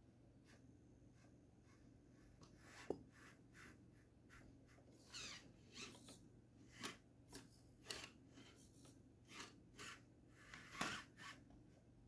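Faint, short whirs from the Axial SCX24 micro crawler's small electric motor and gears, in bursts of throttle about twice a second, mixed with clicks and scrapes as its tyres and chassis grip the rock. There is a sharp click about three seconds in and another near the end.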